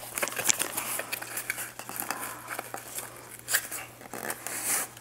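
Packaging crinkling and rustling, with many small irregular clicks and taps, as a box of PSA-graded card slabs is unpacked by hand. A faint steady low hum runs underneath.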